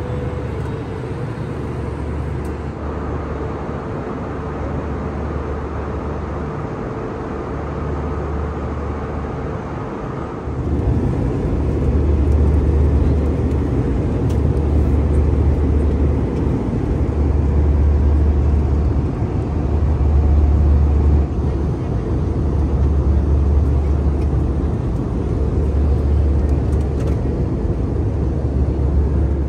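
Airbus A320 cabin noise in flight: a steady rumble and rush from the engines and airflow over the fuselage, getting louder about ten seconds in.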